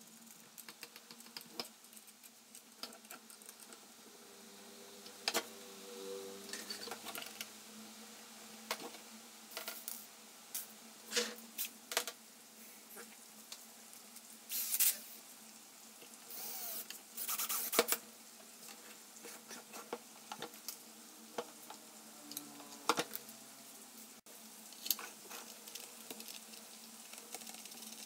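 Scattered clicks, taps and short scrapes of hands fitting plastic fan-housing parts together with small metal screws and nuts, in irregular bursts with a few louder scrapes around the middle.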